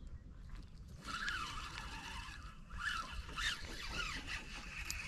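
Spinning reel being cranked, its gears whirring as the line is wound in, starting about a second in and surging unevenly with the speed of the handle.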